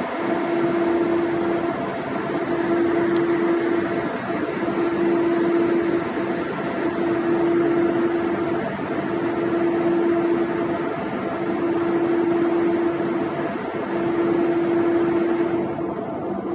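Steady mechanical drone of a fishing vessel's machinery, with a hum that breaks off briefly about every two seconds.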